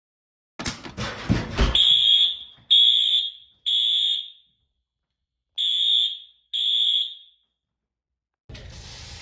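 Fire alarm horn sounding the evacuation tone, set off by a smoke detector under test: after a short burst of noise, three high electronic beeps, a pause, then two more before it stops. Near the end a steady hiss starts, aerosol test smoke being sprayed at a detector.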